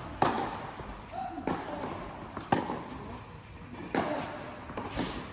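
A tennis ball being struck and bouncing in play, five sharp echoing pops roughly a second apart, in a large indoor tennis hall.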